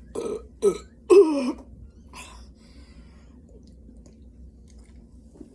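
Three short throat noises from a person who has been chugging soda, the third the loudest and longest with a wavering pitch, followed by a faint breath.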